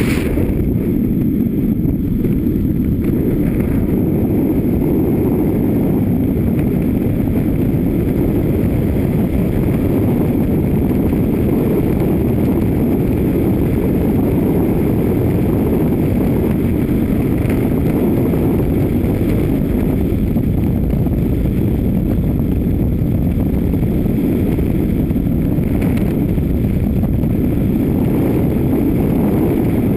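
Steady roar of freefall wind buffeting a body-mounted camera's microphone during a skydive.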